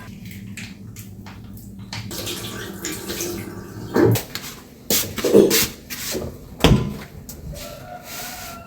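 Water running, with several sharp knocks and clatters about halfway through.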